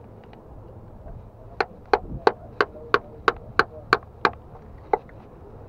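Pliers used as a hammer tapping a screwdriver set against a rock oyster to chip it off the rock: a run of nine sharp taps, about three a second, then one more about a second later.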